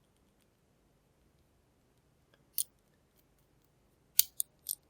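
Sharp clicks from a small replica wheel combination lock as its character wheels are turned and wiggled under tension to decode it: one click about two and a half seconds in, then three quick ones near the end, the first of these the loudest.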